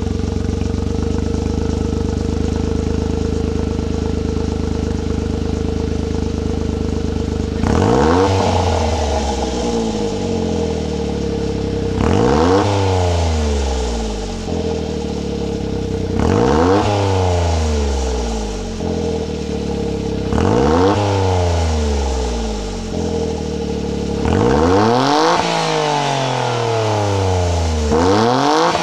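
Suzuki Alto Works' three-cylinder turbo engine through a Monster Sport SP-X stainless aftermarket muffler, idling steadily. From about eight seconds in it is blipped roughly every four seconds, each rev rising quickly and falling back to idle, and the later revs go higher.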